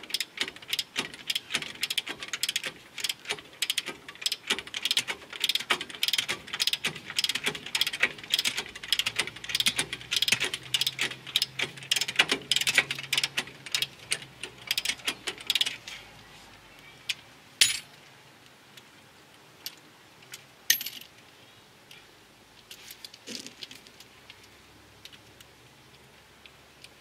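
Ratchet wrench clicking rapidly as it turns a bolt on a car's front spindle, for about sixteen seconds; then a few separate sharp metal clicks.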